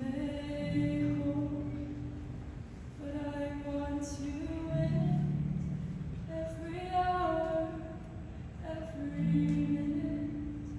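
Show choir singing long held chords in several voice parts, phrase after phrase of about two to three seconds each.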